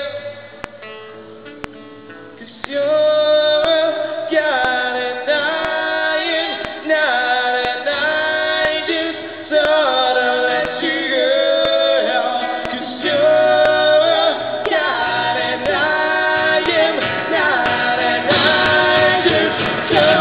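Live band playing a song: a woman and a man singing held notes over acoustic guitar and band. Quieter for the first two seconds or so, then it comes in loud, growing fuller near the end.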